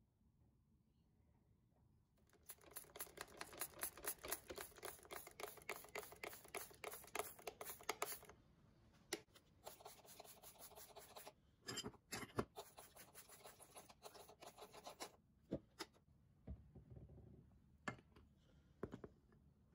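Faint, rapid scrubbing strokes of a brush on rusty steel breast-drill parts, in three long runs that start about two seconds in, followed by a few scattered clicks and knocks near the end.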